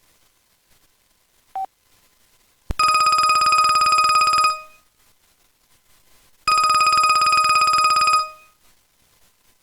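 Old grey Verizon flip phone sounding a trilling, bell-like ringtone: two rings, each just under two seconds long, with a gap of about two seconds between them. A single short beep comes just before the first ring.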